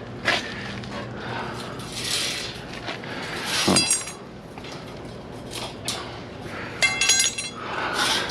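Pieces of scrap clinking and rattling as debris in a dumpster is rummaged through. There is a ringing clink about three and a half seconds in, and a quick cluster of ringing clinks about three seconds later, between softer rustling.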